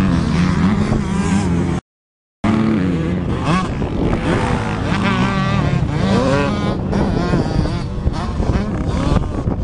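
Motocross dirt bike engines revving up and down as bikes race around the track, the pitch rising and falling with each throttle change. The sound cuts out briefly about two seconds in.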